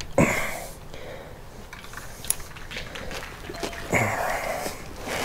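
Small clicks and taps of a metal windshield bracket and a hex-bit ratchet being handled on a motorcycle fork tube, with two louder rustling noises, one at the start and one about four seconds in.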